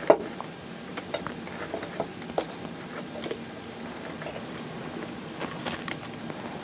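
Sphagnum moss rustling and crackling as fingers press it into a glass bowl around an orchid's roots. Scattered light irregular clicks and crackles, the sharpest just after the start.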